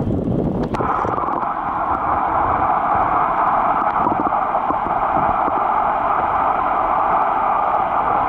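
Steady underwater hiss picked up by a submerged camera, an even noise that sets in about a second in and holds unchanged.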